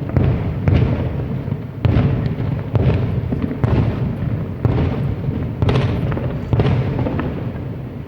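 Large aerial fireworks shells bursting one after another, a deep boom about once a second, each trailing off in a low rolling rumble.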